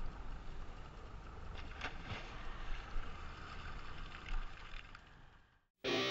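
Small boat on choppy water: water splashing against the hull over a low steady rumble, with a few faint clicks. It fades to silence near the end, and music starts right at the end.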